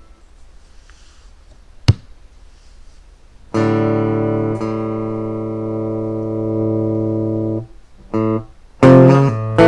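Electric guitar played through a Marshall amplifier: a sharp click about two seconds in, then a chord left ringing for about four seconds, a short chord, and louder chords struck near the end.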